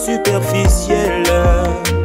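Background music: a song with a steady beat of deep kick drums under bass and melody notes.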